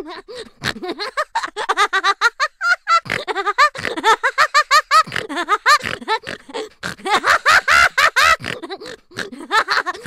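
Snorting laughter sound effect: a person laughing in rapid runs of short, pitched bursts mixed with pig-like snorts, with brief pauses between runs.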